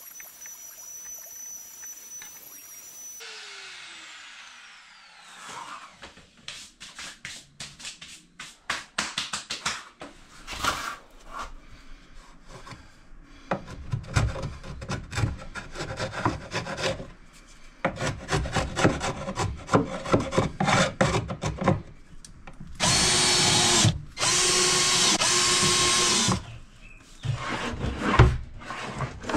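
Knocking and clicking of drawer parts being fitted into a chipboard kitchen cabinet. Near the end a cordless drill runs at a steady speed in two bursts of a second or two each.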